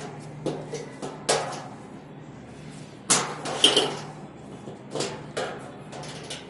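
Metal hand tool clicking and knocking against the nuts and bolts of a C-band satellite dish's metal support ring as the nuts are tightened: irregular sharp clinks, with a louder cluster about three seconds in.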